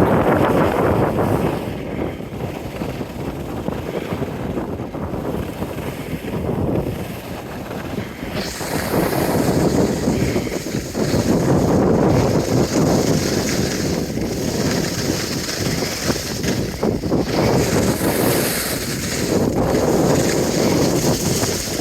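Wind buffeting the microphone: a loud rushing that swells and eases, growing stronger about nine seconds in.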